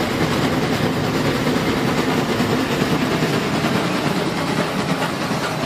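Steam locomotive hauling passenger cars past at speed: the steady running noise of the train on the rails.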